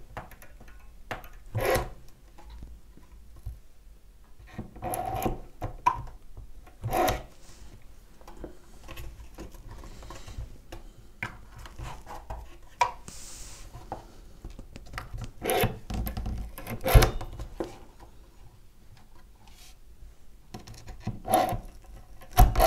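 Hands working a thin wooden trim strip onto a wooden model ship's stern gallery: scattered small clicks, taps and rubs of wood on wood every second or two, with a sharper knock about two-thirds of the way in and another near the end.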